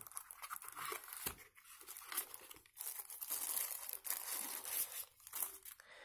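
Packaging rustling and crinkling in irregular bursts as a phone charger is handled and lifted out of its cardboard box and paper insert.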